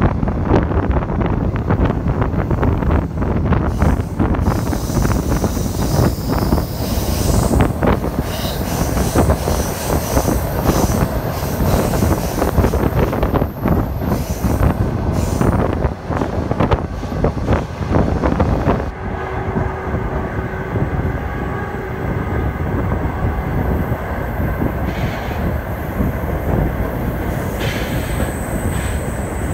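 Passenger train running, heard from an open carriage window: steady rumble and rapid clatter of wheels over the track. High thin squeals from the wheels come and go, from about four seconds in to about fifteen seconds, and again near the end as the train takes a curve.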